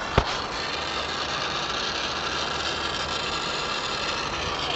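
Brazing torch hissing steadily while a copper joint on a replaced compressor is brazed, with one sharp click just after the start.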